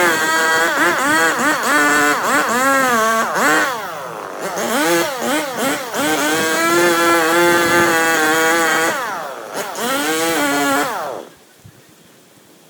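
Two-stroke chainsaw running at high revs, its pitch rising and falling over and over as the throttle is worked, then cutting off about eleven seconds in.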